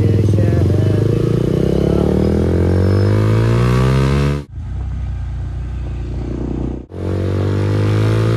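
Motorcycle engine and exhaust accelerating, the pitch rising steadily for about four seconds. It then breaks off abruptly, twice, each time going on as steady running at a lower pitch.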